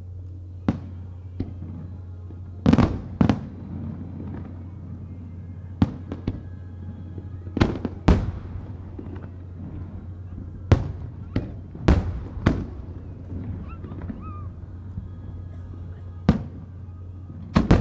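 Japanese aerial firework shells bursting, about a dozen booms at uneven intervals, some in quick pairs and a cluster of three about three seconds in, each trailing off briefly, over a steady low hum.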